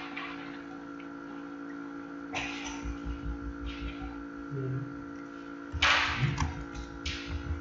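Steady electrical hum with several short hissy rustles and soft low thumps, the largest about six seconds in.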